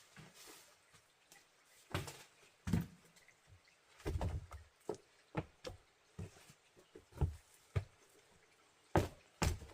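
Irregular knocks and taps from hands-on work, with a few heavier thuds, one longer about four seconds in and a pair near the end.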